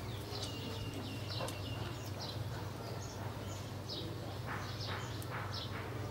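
Small birds chirping in short high calls, with a held high note early on, over a steady low hum. A few soft chewing sounds come from someone eating a stir-fry.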